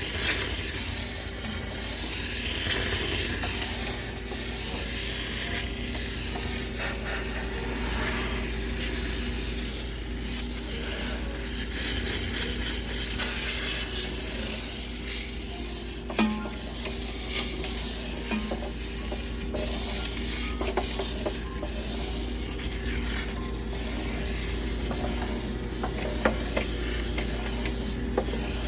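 High-pressure steam cleaner jetting steam to sterilize a sneaker washing machine: a steady hiss with scattered spits and crackles, over a faint low hum.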